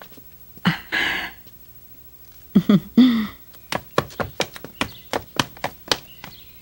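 Street-scene sound: two short pitched calls, like cries, about a second in and near the middle, then a quick run of sharp taps or knocks, about four a second.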